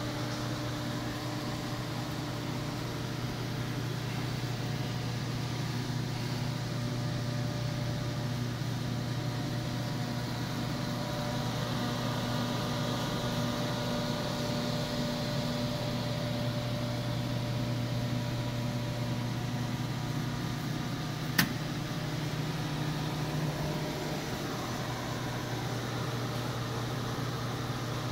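Lincoln 1132 conveyor pizza oven running: its fans and motors give a steady hum with several held tones and a hiss, the hiss a little stronger midway. A single sharp click about 21 seconds in.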